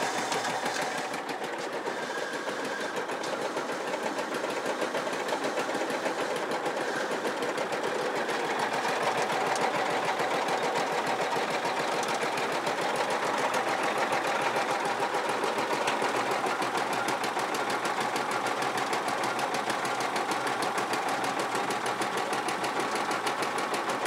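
Magna Trac mini bulldozer's small petrol engine and V-belt drive running steadily, with a fast, even mechanical rhythm.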